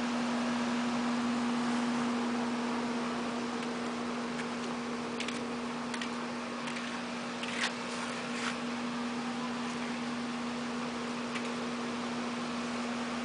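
A steady low hum, a single held tone, over an even background hiss, with a few faint clicks about five to nine seconds in.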